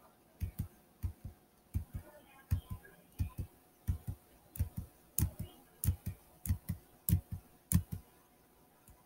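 Irregular clicking of computer controls, about three clicks a second, stopping about a second before the end.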